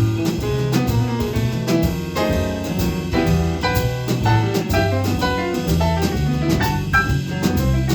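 Live small-group jazz playing a slow ballad instrumentally, with piano chords, sustained low bass notes and drum kit cymbals.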